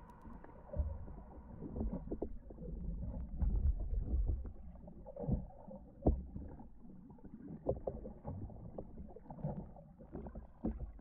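Muffled underwater sound through a GoPro's waterproof housing: low rumbling water movement with scattered knocks and thumps. A faint steady hum stops about two seconds in.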